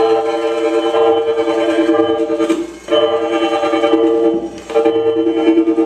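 Live experimental band of saxophones, prepared guitar and voice playing long, droning held notes, two close pitches sounding together. The drone breaks off briefly twice, at about two and a half seconds and again at about four and a half seconds, then resumes.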